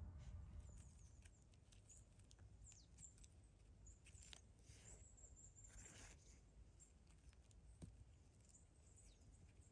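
Near silence: faint forest-floor ambience with small rustles and clicks, and a few faint high chirps.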